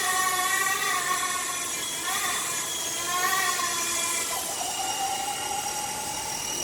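Small RC model helicopter's electric motor and rotor whining, its pitch swelling up and down several times as the throttle changes, then holding steadier for the last couple of seconds.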